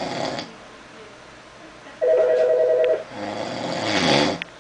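A person snoring: one snore fades out just after the start, and another begins about three seconds in and grows louder toward its end. Between them, about two seconds in, a telephone rings once with a short warbling trill, the loudest sound.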